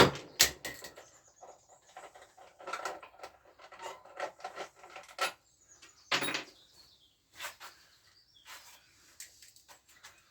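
Irregular clinks, knocks and scraping of tools and metal parts being handled while a four-stroke scooter engine is taken apart, with no engine running. A sharp knock at the start and another about six seconds in are the loudest.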